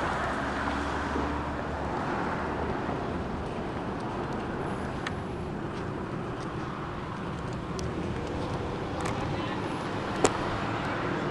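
Steady background noise of road traffic, with a single sharp click about ten seconds in.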